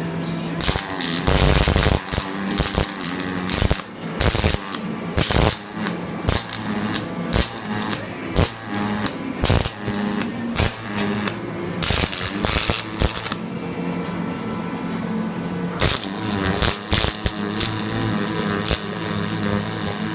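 Arc welder crackling and sputtering in short, irregular stop-start bursts over a steady low machine hum, laying weld onto a car's rear frame reinforcement at an unreduced power setting to build the weld up. A quieter stretch comes about two-thirds of the way in, then the crackle runs on without a break.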